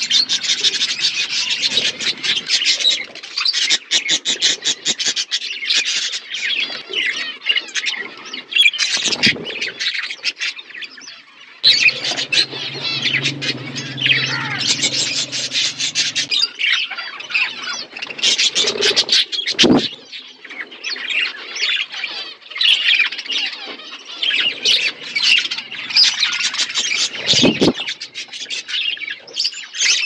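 Budgerigars chattering nonstop, a dense mix of warbling chirps, clicks and squawks.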